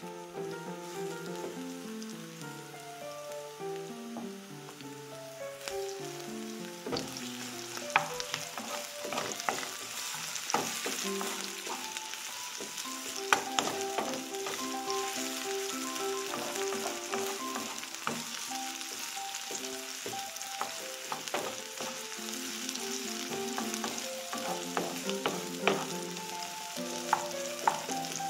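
Sliced onions sizzling in oil in a frying pan, stirred now and then with a wooden spatula that clicks and scrapes against the pan; the sizzle grows louder about six seconds in. Soft background music with held melodic notes plays underneath.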